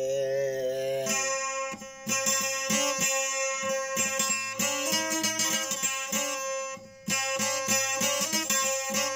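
Instrumental break in a folk song: a plucked string instrument plays a rhythmic melody over a steady drone. It follows a held sung note that ends about a second in.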